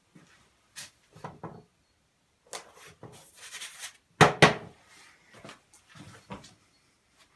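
A hand sticking a sticker onto a hardboard panel in a pallet-slat frame: light rustling and taps, then two solid thumps about four seconds in as the palm presses the sticker flat against the board.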